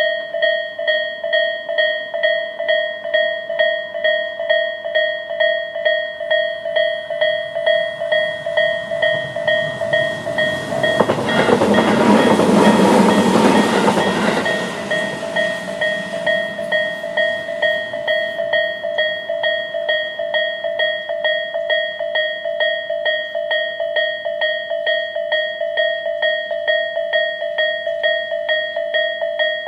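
Electronic Japanese level-crossing alarm (Tobu's 'A' tone) ringing in rapid, evenly repeated strokes. About eleven seconds in, a train passes the crossing for roughly four seconds, loudest of all, then fades while the alarm keeps ringing.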